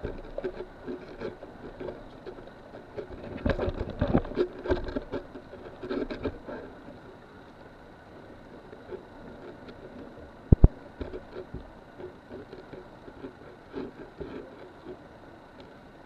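Clatter and knocks of scuba gear being handled on a dive boat's deck over a low steady background noise, busiest in the first six seconds; a sharp double knock about ten and a half seconds in is the loudest sound.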